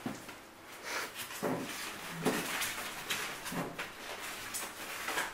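Clear plastic wrapping rustling and styrofoam packing blocks scraping against a cardboard box as a printer is lifted out. It comes as a string of irregular rustles and scrapes.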